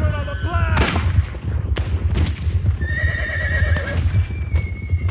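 Battle sound effects of a cavalry charge: horses whinnying with falling cries in the first second, sharp cracks of gunshots, and a constant low rumble of galloping hooves. Held high notes sound in the second half.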